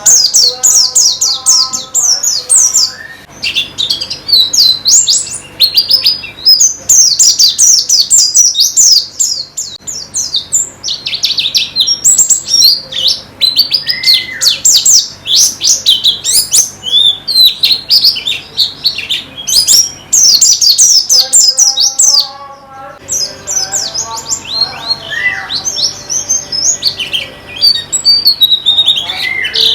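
White-eye (pleci) song: a fast, high-pitched twittering chatter in long run-on phrases, broken by short pauses. Lower, steadier whistled notes sit underneath near the start and again in the last third.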